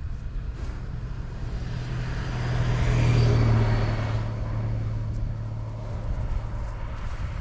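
A passing car on a nearby road, swelling to a peak about three seconds in and fading away, over a steady low wind rumble on the microphone.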